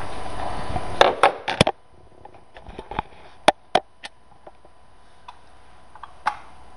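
Handling noise as the camera is moved: a steady hiss with a few sharp knocks, cut off suddenly about 1.7 s in. Scattered light clicks and taps follow, the loudest about 3.5 and 6.3 s in.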